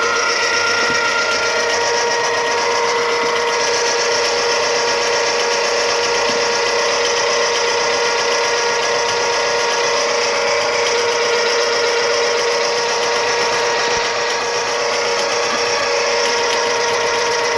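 A small electric motor running steadily, with a constant hum and no change in level.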